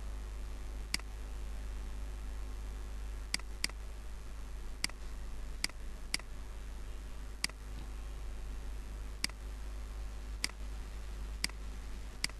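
Computer mouse clicking about eleven times at irregular intervals, with a few clicks in quick pairs, over a steady low hum.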